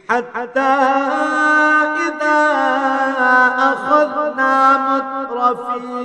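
A male qari chanting a verse of the Quran in Arabic (tilawat), in long drawn-out notes with wavering, ornamented pitch.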